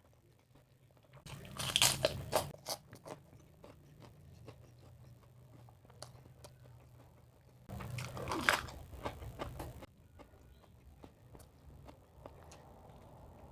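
Close-up crunching of crispy fried food being bitten and chewed, in two loud spells about a second and eight seconds in, with softer chewing between.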